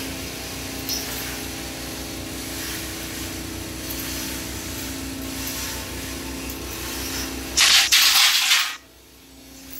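Natural-gas engine-driven gas compressor running steadily: a steady hum over a low, even pulsing. About eight seconds in, a loud rushing hiss covers it for about a second.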